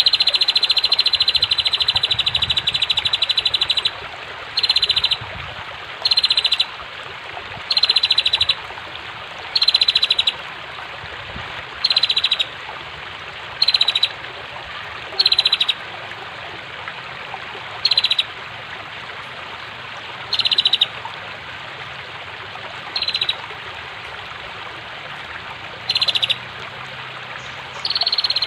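Female prenjak (prinia) giving rapid, rattling trills: one long trill at the start, then a string of short trill bursts every couple of seconds, and another long trill beginning near the end. Under it runs a steady hiss of flowing water.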